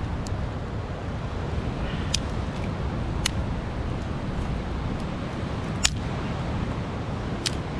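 Small wood fire of dry sticks burning in a stone pit, giving a handful of sharp crackles and pops, one louder than the rest about six seconds in, over a steady low rumble of wind and surf.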